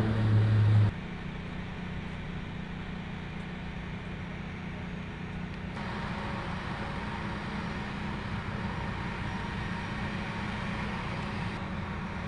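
Steady mechanical hum of machinery running on an aircraft flight line. A louder low drone cuts off abruptly about a second in, and the background changes again near six seconds.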